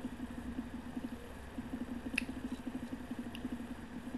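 Steady low buzzing hum with a rapid flutter, background noise on the recording, with two faint clicks about two and three seconds in.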